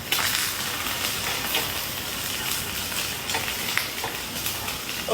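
Food sizzling in a hot frying pan, with short scrapes and clicks of a spatula stirring it.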